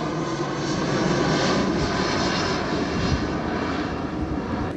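An airplane flying over on its way in to land at the nearby airport: a steady engine rumble that eases off slightly near the end.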